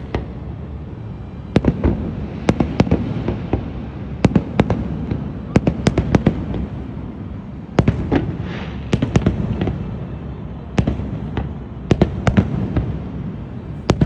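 Aerial fireworks bursting: sharp bangs come in irregular volleys over a continuous low rumble of echoing booms, with a short fizzing crackle about eight seconds in.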